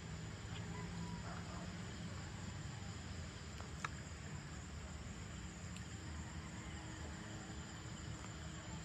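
Evening outdoor ambience: a steady low rumble of distant road traffic under a faint hiss, with a thin high insect-like tone, a few faint brief chirps, and one sharp click about four seconds in.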